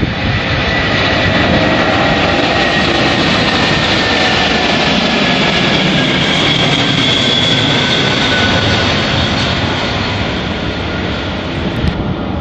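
Antonov An-225 Mriya's six D-18T turbofan engines at takeoff power as the aircraft lifts off and climbs past: a loud, steady jet roar with a faint whine that slowly falls in pitch, easing off a little near the end.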